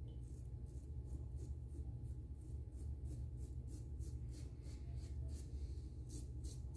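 Double-edge safety razor (the 'Merica razor with a Dorco blade) cutting through several days' heavy stubble in short strokes: a quick run of faint scratchy rasps, about four a second.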